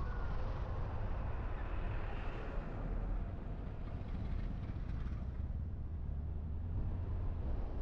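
Car driving along a road: a steady low engine and road rumble with tyre hiss above it, the hiss easing off about five seconds in.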